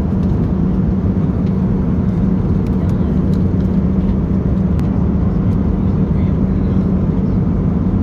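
Steady engine and airflow noise inside the cabin of an Airbus A320neo airliner: a loud, even rush with a low hum, unchanging in level, with a few faint ticks.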